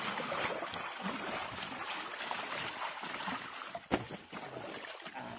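Water sloshing and draining as a fine-mesh drag net is hauled up out of the water by hand, with one sharp knock about four seconds in.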